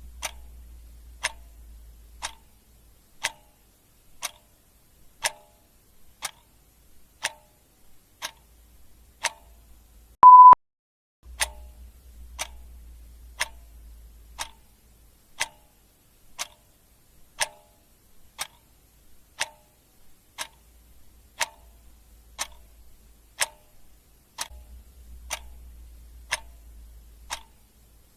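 Clock ticking steadily, one tick a second. About ten seconds in there is a single short, loud beep.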